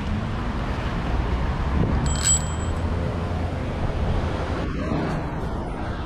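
Steady wind and riding rumble on the microphone of a camera on a moving bicycle. About two seconds in there is one brief high-pitched ring.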